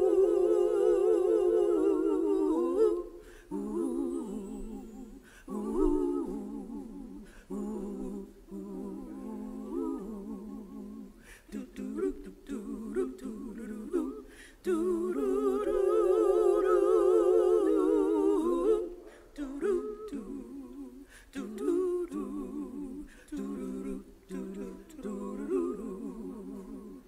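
Gospel singers humming a wordless melody with vibrato. Long notes are held at the start and again about halfway through, with shorter phrases between.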